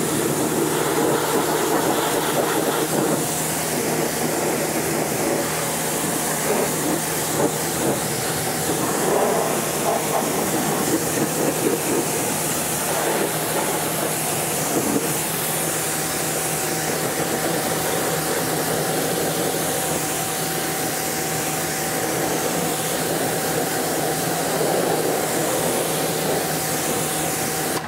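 Kränzle pressure washer spraying through a 25-degree tip onto a muddy tire and wheel well: a steady loud hiss of the water jet and spatter, with the pump's steady hum underneath, for a pre-rinse of the wheel.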